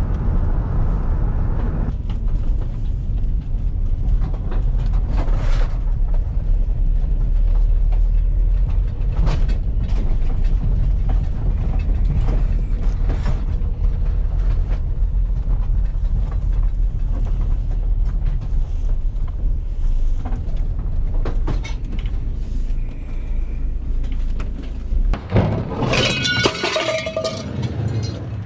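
Steady low rumble of a moving vehicle, with scattered clinks and rattles of loose metal. Near the end a louder burst of metallic clattering.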